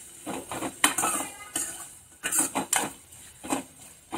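A spatula scraping and knocking against a steel kadai as onions frying in oil are stirred, in irregular strokes.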